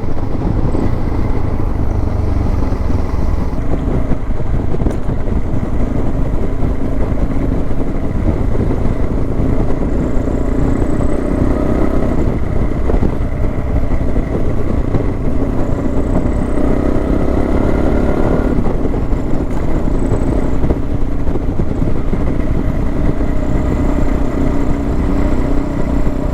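Suzuki DR650's single-cylinder four-stroke engine running as the bike rides along, with heavy wind rush over the microphone. The engine note rises and drops a few times as the rider accelerates and changes gear.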